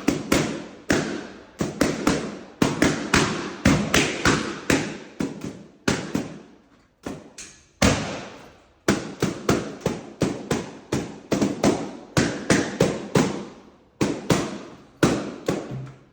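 Balloons popping one after another, about two a second, each a sharp bang with a short fading tail, with brief pauses between runs.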